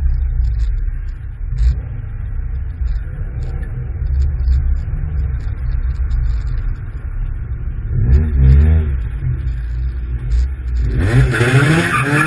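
Car driving on a highway: steady low engine and road rumble, with an engine briefly revving up and back down about two-thirds of the way in, then revving up louder with a rising pitch and hiss near the end.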